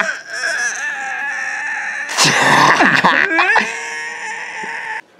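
A man's put-on voice crying in pain: long, wavering, high-pitched wails and whimpers, with a harsh sob about two seconds in.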